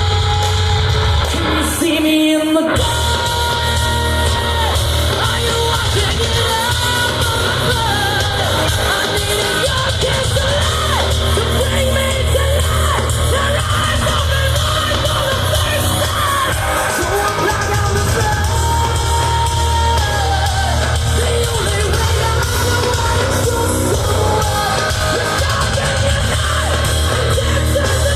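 Live rock band playing loud, with heavy bass and a voice over the instruments; the low end drops out briefly about two seconds in.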